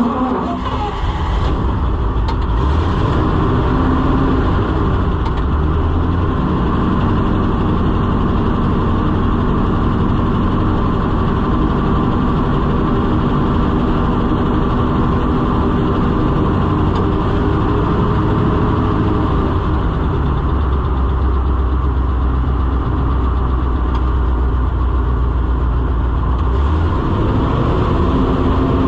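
Oliver 7300 combine engine running steadily just after a cold start in freezing weather, with the low rumble swelling twice as the engine note shifts.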